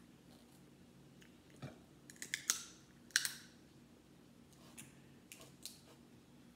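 Boiled crawfish shell being cracked and peeled apart by hand: a run of sharp snaps and crackles, the loudest two about two and a half and three seconds in, with a few smaller clicks later.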